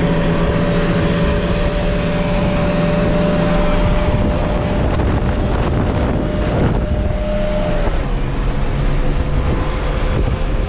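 Off-road 4x4's engine running steadily while driving, with a higher whine that drops slightly in pitch about eight seconds in. Wind rushes over the microphone.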